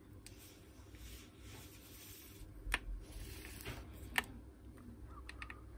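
Faint scattered clicks and taps of small parts of a disassembled angle grinder being handled, with two sharper clicks, one near the middle and one about four seconds in.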